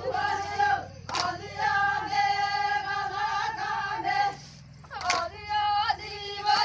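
Traditional Adivasi folk song: a voice singing long held, wavering notes over a steady low drone, with a sharp click about a second in and another about five seconds in, and a brief drop in the singing just before the second.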